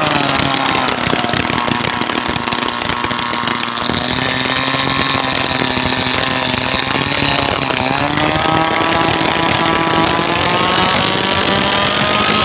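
Small petrol brush-cutter engine running hard, driving a 6 cm four-bladed propeller that churns and splashes water. Its pitch falls in the first second, holds steady, then dips about eight seconds in and climbs again.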